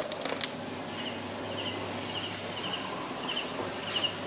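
Steady background noise with a short, high double chirp repeating about twice a second, and a few sharp clicks near the start.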